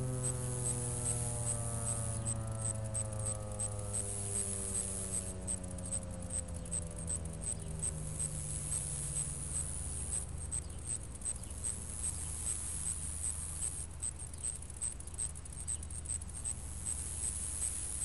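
Federal Signal 2001-SRNB electromechanical siren winding down after its alert cycle, its tone sliding lower and fading away over about the first ten seconds. Insects keep up a steady high-pitched chirping, about two to three chirps a second.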